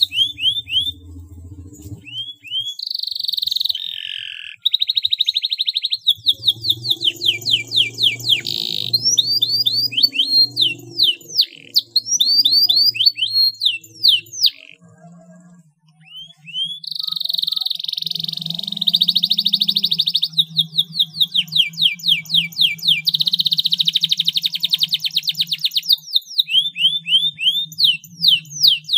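Domestic canary singing a long song of rapid trills and quick repeated chirps, with rolling trills held for two or three seconds at a time. The song breaks off briefly about halfway through.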